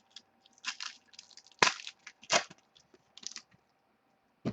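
Football trading cards handled and flipped through by hand: dry rustling and sliding with short clicks and a few sharp snaps, the loudest two about a second and a half and two and a half seconds in.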